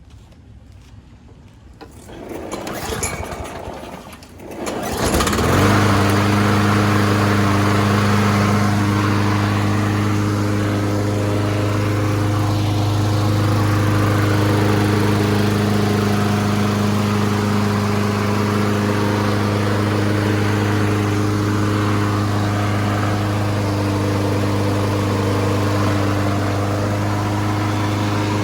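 A 2005 Troy-Bilt self-propelled mower's Briggs & Stratton 190cc single-cylinder engine is pull-started on its recoil. It catches about five seconds in and runs steadily at a constant speed, now running after a carburettor rebuild and a correct spark plug.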